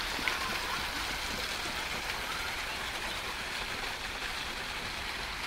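Water falling down an artificial rock fountain and splashing into its pool, a steady rushing noise.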